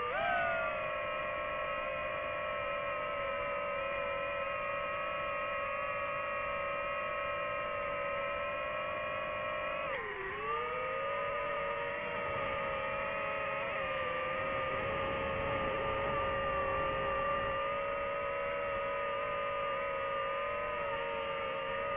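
Quadcopter drone motors and propellers running with a steady whine. The pitch briefly drops and climbs back twice, at the very start and about ten seconds in.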